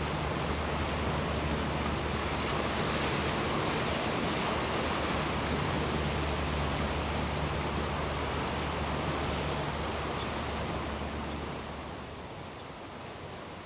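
Steady seaside ambience of surf and wind, an even rushing noise with a low hum underneath that fades out about ten seconds in. A few faint high chirps come through, and the noise drops a little near the end.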